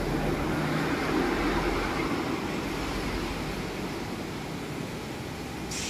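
Steady background rumble and hiss with a faint low hum, easing slightly toward the end.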